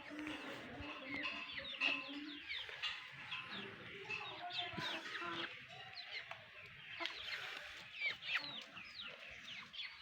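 A mother hen clucking low for the first couple of seconds, with chicks peeping throughout in many short, high, falling chirps.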